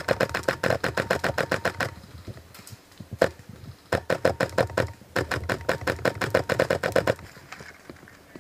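M4/M16-style airsoft rifle firing full-auto bursts of BBs, a rapid even chatter of shots. One burst ends about two seconds in, a single shot follows, then a short burst and a longer one of about two seconds. It falls quiet for the last second or so.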